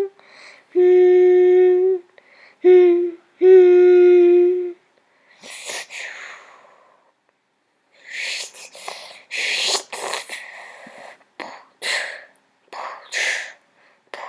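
A child's voice humming three long, steady notes, then a run of short breathy puffs and hisses through the mouth.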